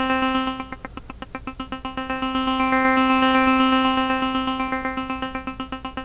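Flux wavetable synthesizer in HALion Sonic SE playing one held note as a fast, even arpeggiated pulse. The tone colour shifts from pulse to pulse as the arpeggiator steps the wavetable positions, and a low sustain with a short decay gives each pulse a plucked edge. The sound swells in the middle and eases off near the end.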